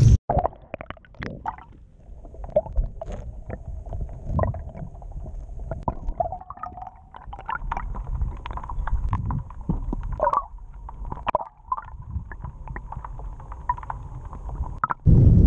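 Underwater sound picked up by a submerged camera: a muffled low rumble of water with many scattered clicks and knocks, and a faint steady whine that grows stronger in the second half.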